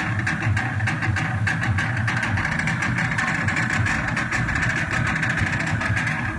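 Music for the dance, with a steady low drumbeat and many sharp hits.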